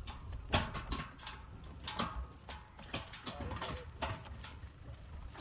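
Irregular knocks and clatter from a boat trailer being pushed by hand over a rough dirt road, with men's voices calling out.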